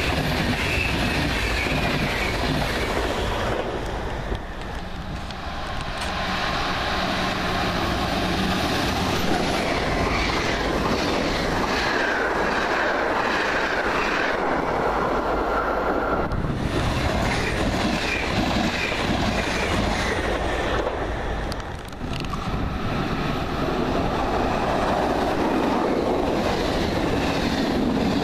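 SBB passenger coaches rolling past at close range, their wheels running continuously on the rails with a faint high squeal at times. The sound eases briefly about 4 and 22 seconds in.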